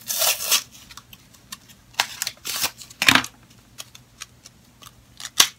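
Plastic lip balm packaging being handled and opened by hand: several short crinkling, rustling spells and clicks with quiet gaps between, and a light knock about three seconds in.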